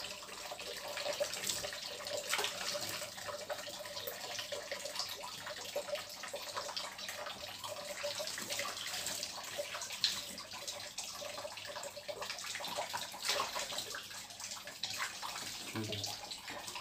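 Kitchen tap running into a stainless steel sink, with irregular splashing and dripping as hands work water through a wet cat's fur.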